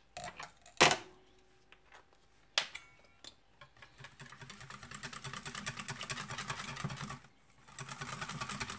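A wire whisk beating liquid mirror glaze in a stainless steel pan, its wires ticking rapidly against the metal. The whisking starts a few seconds in, stops briefly near the end and resumes. It is preceded by a couple of sharp knocks.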